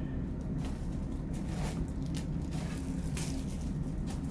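Small items and plastic packaging being handled, with a few short rustles and soft clicks, over a steady low background hum.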